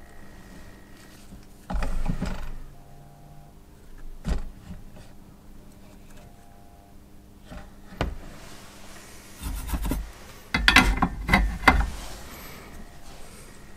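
Hands handling a soldering iron, small parts and crocodile clips on a hobby bench while a wire is soldered onto a tiny brush clip: scattered knocks and rustles, a louder clatter about two seconds in, and a rattling cluster of clicks and scrapes near the end. A faint steady hum runs underneath.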